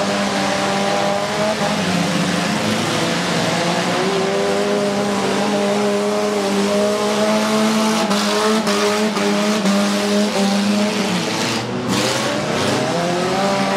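Derby cars' engines racing around a dirt oval track, their pitch rising and falling as the drivers work the throttle. One engine drops about eleven seconds in, then revs back up near the end. A few sharp knocks come about eight to ten seconds in.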